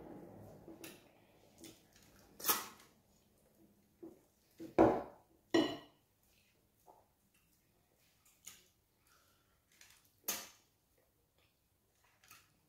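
Close-miked eating sounds as wheat fufu and banga soup are eaten by hand: a scattering of short, separate clicks and smacks, four of them louder, with quiet gaps between.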